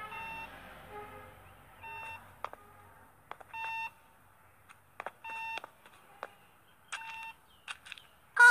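Hospital patient monitor beeping in a cartoon: short electronic beeps repeating about every one to two seconds, with a few faint clicks between them.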